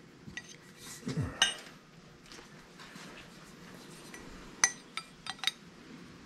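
Small metal-on-metal clinks and taps from a steel bicycle seat post and measuring calipers being handled while a seat post diameter is measured: one sharp clink about a second and a half in, then four quick clinks near the end.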